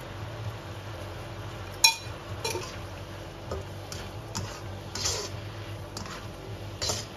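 Plastic slotted spatula stirring chicken in a nonstick wok, knocking and scraping against the pan several times, the sharpest knock about two seconds in. A steady low hum runs underneath.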